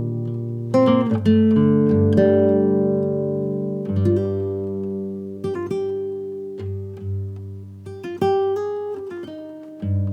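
Background music: plucked acoustic guitar chords, each struck and left to ring out, a new chord about every second.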